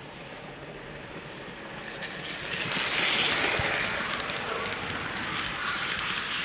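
Model train running on Kato Unitrack: the locomotive and its freight cars roll closer, growing louder and loudest about three seconds in as they pass close by, then a steady rolling rattle of the cars' wheels on the track.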